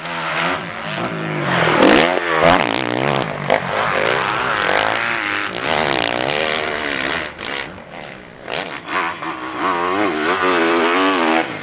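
Motocross bike engines revving hard while being ridden on a sand track, the pitch rising and falling over and over as the throttle opens and closes.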